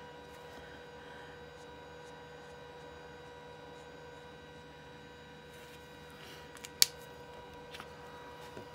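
Steady electrical hum with a higher whine over it, with faint strokes of an alcohol marker's tip on cardstock. A single sharp click comes near the end.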